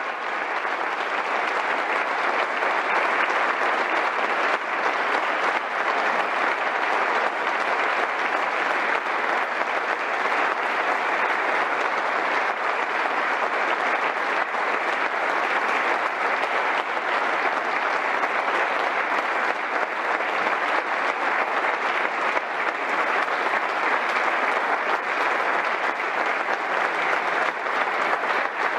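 An audience of a few dozen people applauding without a break, swelling over the first two seconds and then holding steady.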